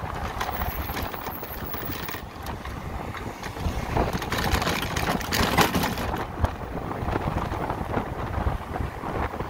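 Wind buffeting the microphone on a moving electric motorcycle, with road noise. The gusts grow louder about halfway through.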